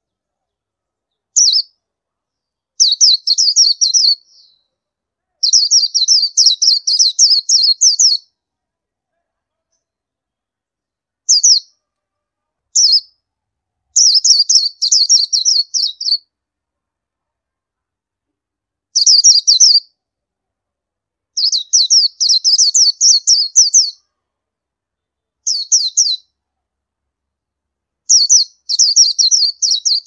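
Oriental white-eye calling: runs of quick, thin, high chirps, about ten of them, each from a single note to about three seconds long, with silent gaps between.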